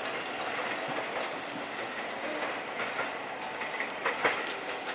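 Tokyo Metro 6000 series electric commuter train running on the track: a steady rumble of wheels on rail with clickety-clack. A few sharp clicks come in the second half, the loudest about four seconds in.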